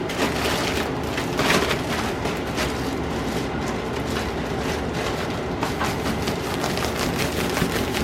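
Floured raw chicken pieces being shaken in a container of seasoned flour to coat them: a continuous rattling with many quick knocks, busier in the second half.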